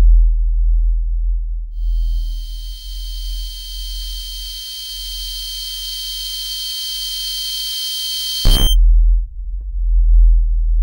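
Horror-trailer sound design: a deep, loud low rumble, with a steady high-pitched ringing tone that comes in about two seconds in and cuts off abruptly with a short burst near nine seconds, after which the rumble carries on.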